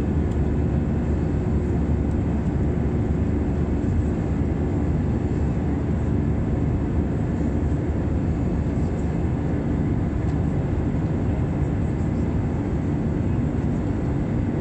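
Steady cabin drone of an easyJet Airbus A320-family jetliner climbing out after take-off, heard from a window seat beside the engine: engine and airflow noise, heaviest in the low end, with a few steady hums.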